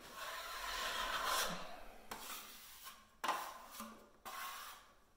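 Metal smoothing blade (lisseuse) scraping finishing joint compound across a taped plasterboard joint. One long stroke is followed by several shorter strokes about a second apart.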